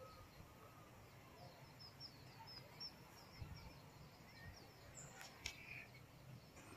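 Faint bird chirps over a near-silent background. A quick run of short, high chirps comes about a second and a half in, and a few more chirps come near the end.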